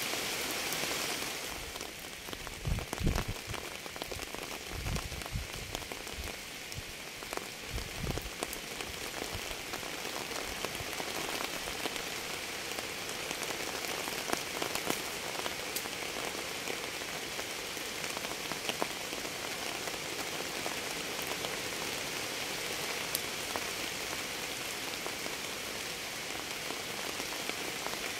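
Steady rain falling on a surface, a constant hiss with individual drops ticking through it. A few low thuds come in the first eight seconds or so.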